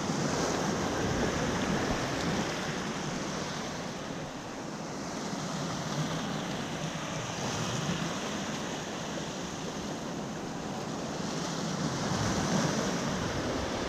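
Ocean waves washing and foaming over a rock shelf at the edge of a rock pool: a steady rushing surge that swells a little near the start and again near the end.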